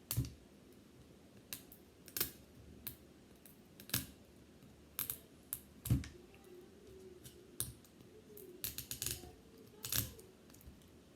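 Tear-strip 'zipper' on toy packaging being pulled by hand, giving irregular sharp clicks and crackles as it tears bit by bit instead of ripping open cleanly.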